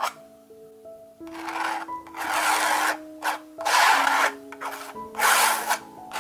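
Metal palette knife scraping acrylic paint across a textured canvas in four long strokes, starting about a second in. Soft background music plays underneath.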